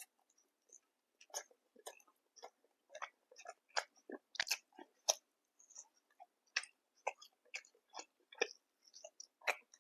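Close-miked chewing of food: a string of short wet clicks and crunches, two or three a second, starting about a second in and loudest around the middle.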